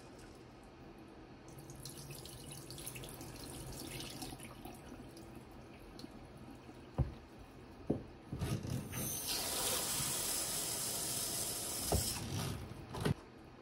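Rice being washed by hand in a stainless steel bowl: water sloshing as the grains are stirred, then two sharp knocks. A kitchen tap then runs into the bowl for about four seconds, with a couple more knocks near the end.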